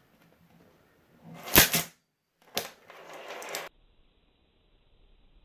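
Pennies snapping onto a 550 kg clamp magnet: two sharp metallic clicks about a second and a half in, then another click and a short clatter of coins that cuts off suddenly.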